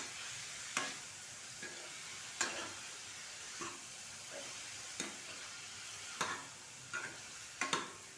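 Broccoli and green peas being stirred in a kadhai, the utensil scraping and knocking against the pan about once a second over a steady faint sizzle of the spices and oil.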